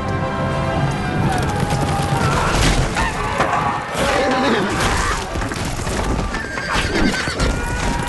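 Film battle soundtrack of a cavalry charge: warhorses neighing several times over galloping hooves and repeated impacts, with music underneath.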